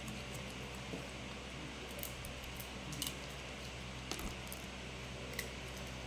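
A few short crackles and crunches of dry instant noodles being broken and bitten, with a plastic noodle packet crinkling in a hand, over a steady low hum.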